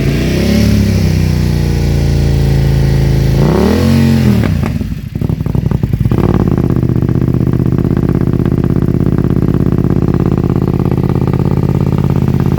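BMW F900R's parallel-twin engine running through a Yoshimura aftermarket exhaust, revved: a quick rise and fall at the start, a second blip about four seconds in, then a steady idle from about six seconds in.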